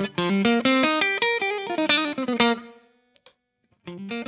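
Fender Stratocaster electric guitar playing a quick run of single picked notes through a Way Huge Red Llama overdrive with its drive turned down, used as a clean boost into a Fender Bassman amp; the tone stays clean and nearly uncoloured. The phrase dies away about three seconds in, and after a short gap the playing starts again near the end.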